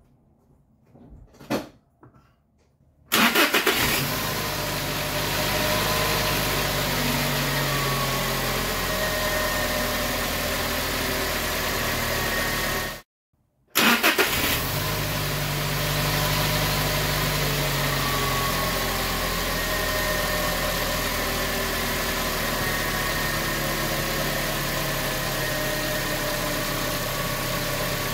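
A few clicks, then a Toyota Tacoma's 2.7-litre four-cylinder engine cranks from cold, catches and idles steadily. After a short break a little past halfway it starts again and settles back to idle. It has no squeal or chirp: the new belt, tensioner and idler pulley are running quietly.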